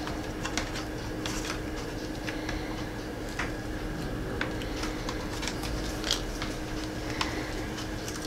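Scattered light clicks and taps of fingers handling a replacement laptop keyboard and pressing its ribbon cable into the connector, over a steady faint hum.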